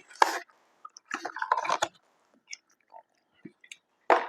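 Close-miked chewing of fast food, mixed with short crackles and taps of a cardboard food carton being handled.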